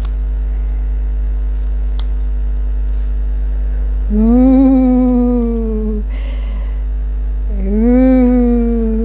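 A woman humming two long notes, the first about four seconds in and the second near the end; each rises a little and is then held. A steady low hum runs underneath.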